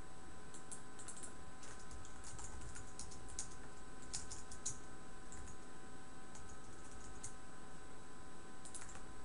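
Computer keyboard typing in quick runs of keystrokes with short pauses between them, the runs thickest in the first half and again near the end. A faint steady hum sits underneath.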